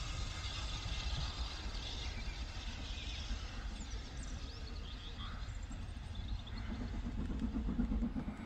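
Steam train pulling away into the distance, heard as a steady low rumble of running noise that thins out as it recedes.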